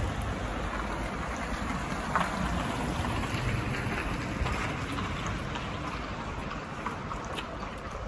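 Street traffic noise: a car's tyres on asphalt fading slowly as it drives away, with a few faint clicks.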